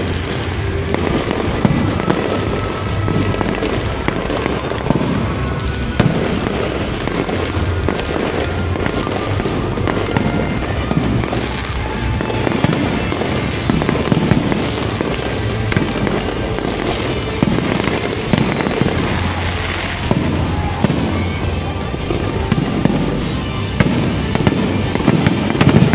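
Aerial fireworks display: shells bursting one after another in a continuous barrage of bangs and crackles, with louder bursts every few seconds.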